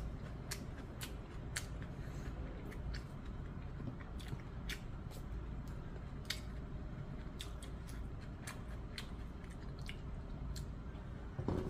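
A person chewing a mouthful of food, with irregular wet, crunchy clicks about one to two a second. A short, louder sound comes near the end.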